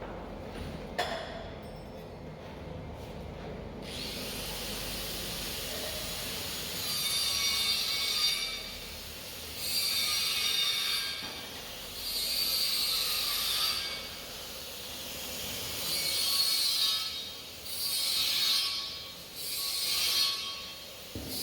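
A concrete paving-block and hollow-block making machine working through its cycle. A steady hiss starts about four seconds in. From about seven seconds in, a buzzing rattle comes in bursts of one to two seconds, six times, every two to three seconds.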